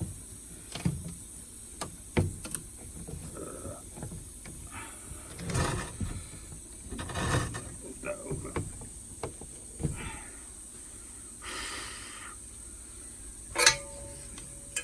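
Handling noises: scattered knocks and clicks with a few short hissing swells, as the sandblasted aluminium part is got out of the sandblasting cabinet. There is one louder knock near the end.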